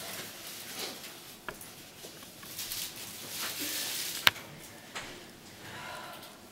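Faint rustling and handling noises from a puppet being worked over a cloth-covered table, with a few sharp clicks, the loudest about four seconds in.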